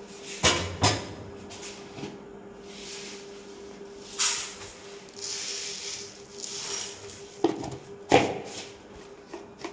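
Steel kitchen utensils clinking and knocking against a steel pot, and a dry hissing pour of granulated sugar from a plastic jar into the pot. Two sharp clinks come about half a second in, the pour hisses through the middle, and two more knocks come near the end, over a faint steady hum.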